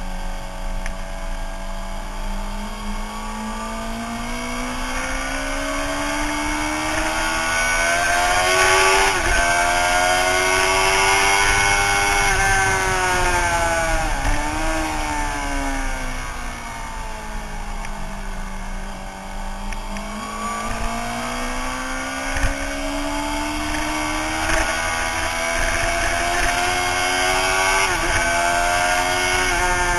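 Suzuki sportbike engine heard from on board at track speed, with rushing wind over the microphone. Engine pitch climbs steadily as the bike accelerates, drops with quick throttle blips on downshifts about halfway through, sinks while slowing, then climbs again, with more quick dips near the end.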